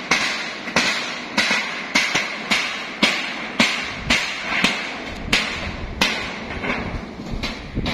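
A hammer striking the steel roof framing at a steady pace, about two blows a second, each blow ringing briefly.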